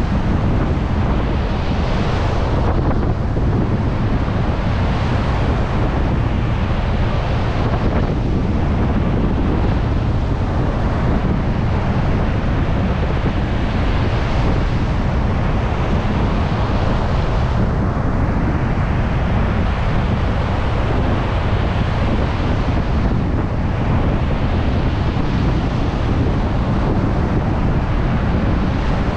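Heavy surf breaking on a beach in strong wind, with wind buffeting the microphone in a constant low rumble. The hiss of the waves swells and falls back every few seconds.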